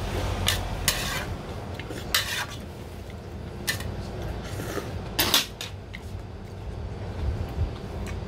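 Metal chopsticks clinking and scraping against a small metal ramen pot, with several short, sharp noisy bursts of eating and slurping noodles.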